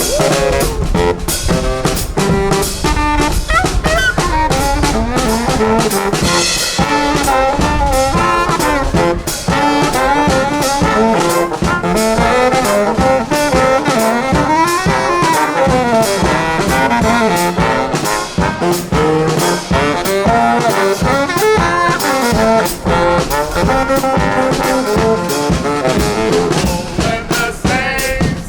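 Brass band playing an upbeat tune, trombones and trumpets over a drum kit, with a horn line sliding up and back down about halfway through.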